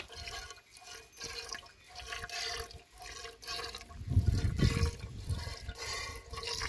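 Milk squirting in streams from a cow's teats as it is milked by hand, a short hiss with each squeeze, about two a second. A louder low rumble comes in about four seconds in.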